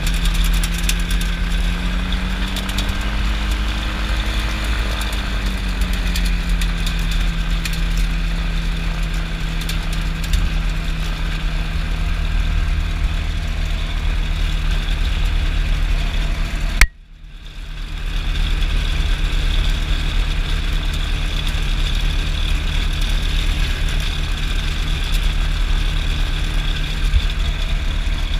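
Kolb FireFly ultralight's engine running steadily, its pitch rising slightly a few seconds in and settling back. About seventeen seconds in, a sharp click cuts the sound out briefly before the engine comes back in over a second or so.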